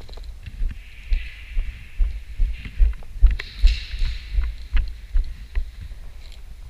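Footfalls of a player jogging on a concrete floor, heard as low thuds through a body-worn camera, about two and a half a second, with scattered faint clicks.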